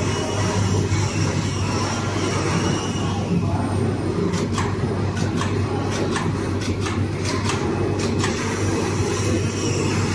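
Steady hum and rush of a digital flatbed fabric cutting machine running. From about four to eight seconds in, a run of short sharp clicks or knocks sounds over it.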